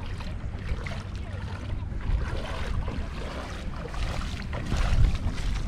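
Bare feet splashing through ankle-deep water, an irregular patter of small splashes that grows busier partway through, over a steady wind rumble on the microphone.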